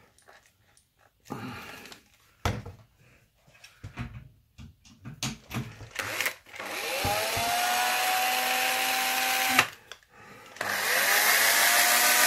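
Cordless drill fitted with a homemade sponge polishing pad: first clicks and handling noises as the pad's shank is set in the keyless chuck, then the drill motor spins up with a rising whine and runs steadily for about three seconds, stops, and spins up again near the end.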